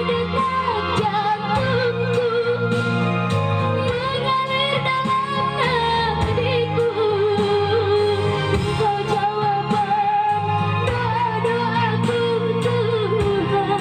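A young female voice singing a melody into a microphone, with long held notes that waver, over steady backing music.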